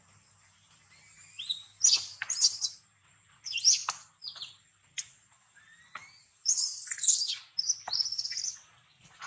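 Baby long-tailed macaque crying in several bursts of high-pitched squeals and rising squeaks, the longest run near the end.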